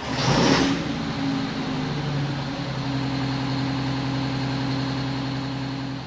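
A large engine running steadily with a low hum, after a brief loud rush of noise in the first half-second.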